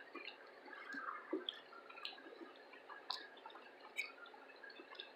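Faint, scattered wet mouth clicks and smacks of a person chewing food close to the microphone.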